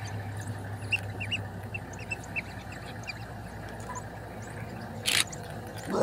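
African wild dogs and their pups twittering in short, high squeaky chirps while the adults feed the pups, over a steady low engine hum. A brief rush of noise comes about a second before the end.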